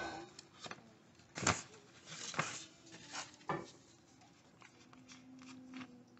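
Paper flour bag crinkling and rustling as it is handled and tipped over a glass bowl, with a run of short sharp crackles and taps, the loudest about one and a half seconds in. The handling noise thins out after about four seconds.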